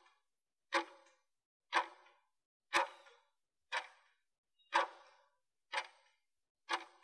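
Countdown timer's clock-tick sound effect, one short tick every second, seven in all, counting down the final seconds of a 30-second exercise interval.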